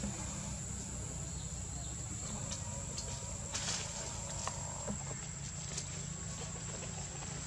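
Forest ambience: a steady high-pitched insect drone over a constant low rumble, with scattered small rustles and clicks and a louder rustle about three and a half seconds in.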